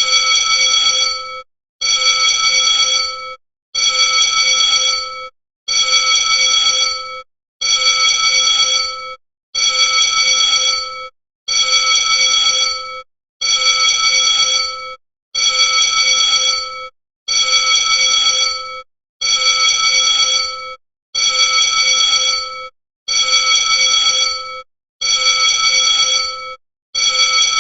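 School bell ringing in repeated rings, each about a second and a half long with a short break between, about one every two seconds.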